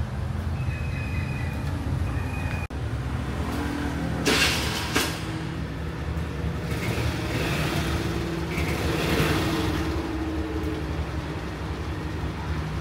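Road traffic: vehicle engines running, with one passing more loudly about seven to ten seconds in. Two short sharp noises come about four and five seconds in.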